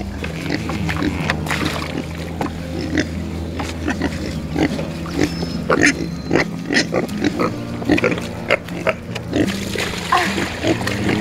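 Pigs grunting and eating feed, with many short, irregular grunts and chomps.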